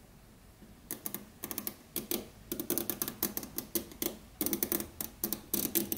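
NeoCube neodymium magnet balls snapping onto one another as a strand of them is wound onto a stacked ring: rapid, irregular clicks, starting about a second in.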